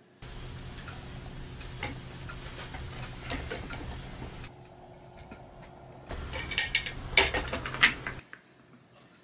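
Square wooden thread-winding reel turning on its winder, a steady low hum with light ticking and rattling as thread is wound onto it, and a louder run of rapid clicking for the last two seconds or so before it stops.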